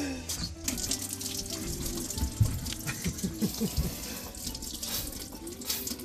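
Water running from a tap into a sink and splashing, a steady hiss that starts about a second in.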